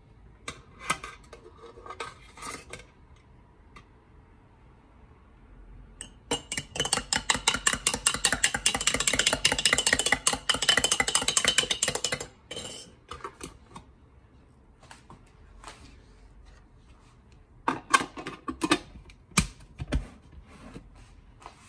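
Metal teaspoon clinking in a ceramic mug: a few separate clinks against the powdered-milk tin, then about six seconds of rapid clinking as the tea is stirred. A few sharper knocks come near the end.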